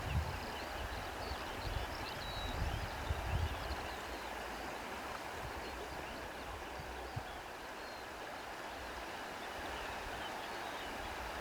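Steady outdoor rushing noise, like a flowing stream, with faint high chirps over it. A few low thumps come near the start and again about three seconds in.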